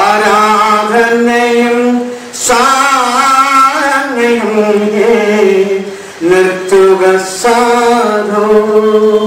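A man's unaccompanied voice singing Malayalam verse in a slow chant, holding long, gently wavering notes, with short breaths about two and six seconds in.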